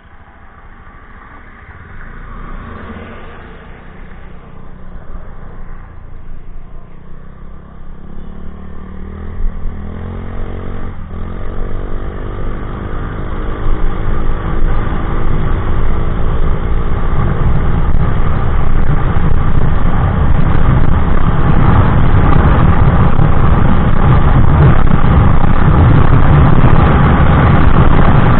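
Honda Click 125i single-cylinder scooter with an aftermarket Exos X6 exhaust accelerating hard toward top speed. The engine note builds from faint to loud, its pitch rising about eleven seconds in and then holding steady, under a rushing noise that keeps growing.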